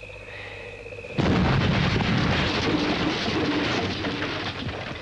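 Steady chirring of insects and frogs, then about a second in a sudden loud explosion that rumbles and slowly dies away.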